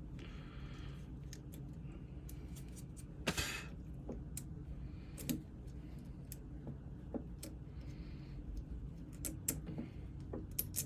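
Scattered light clicks and taps, with one louder short scrape about three seconds in, as clamp screws are loosened by hand and the old power cord's wires are slid out of the air compressor, over a low steady hum.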